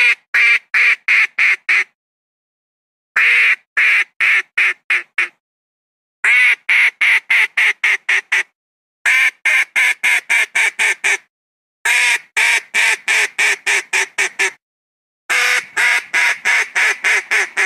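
Wild duck quacking, labelled a Philippine mallard (papa): six runs of six to eleven quick quacks, a new run about every three seconds, with dead-silent gaps between runs. It is played as a lure call to bring wild ducks down.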